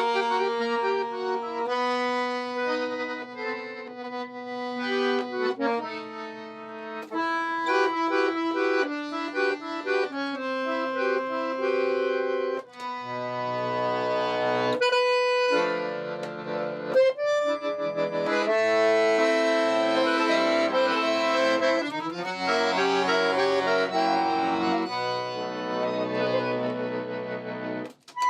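Accordion playing a melody over held chords, the notes changing every second or so, with a brief break about thirteen seconds in.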